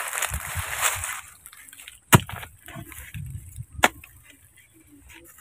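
A long-handled hoe digging into soil and tree roots: two sharp strikes about a second and a half apart, with softer thuds of earth between and scraping through the loose dirt in the first second.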